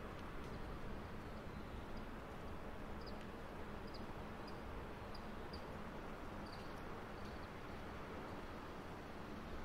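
Steady low rumble of distant city traffic, with a small bird giving about eight short high chirps scattered through, ending about two-thirds of the way in.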